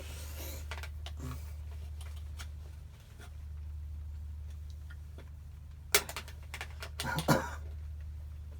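Light clicks and taps of a screwdriver and metal scooter parts being handled during a repair, with sharp knocks about six seconds in and again a second later, over a steady low hum.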